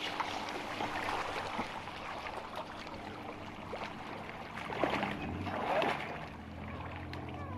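A person wading through shallow marsh water, legs sloshing and splashing with each step, with a couple of louder sloshes about five and six seconds in.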